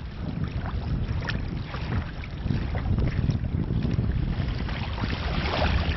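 Wind rumbling on an outdoor microphone over water, a steady noisy rumble with a few short faint ticks.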